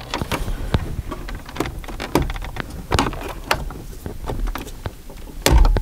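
Scattered plastic clicks and knocks of a pry tool working at the dash trim around a car stereo, which is held by pressure clips along its sides. A heavier thump comes near the end.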